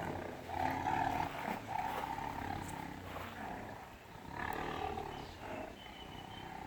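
Tigers growling at each other in a play scuffle, a sign that they are mildly irritated. The calls come mostly in the first two seconds and again about halfway through.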